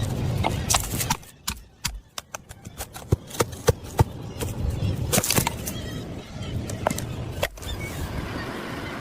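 A string of sharp, irregular clicks and knocks over a low rumble, with a sudden break about three quarters of the way through.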